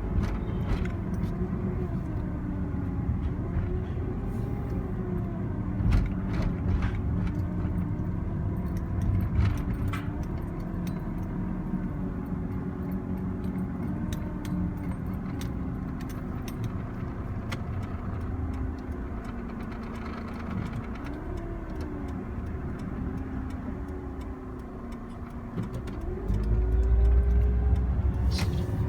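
Suzuki Wagon R RR (MC21S) running, with a wavering tone that rises and falls: the 'wooon' whine of its faulty alternator. The low rumble grows louder near the end.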